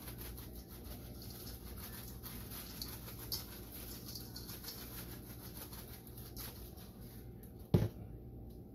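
Seasoning shaken from a spice shaker onto raw spare ribs in a stainless steel bowl, a light, steady patter of small clicks. Near the end a shaker is set down on the counter with a single sharp knock.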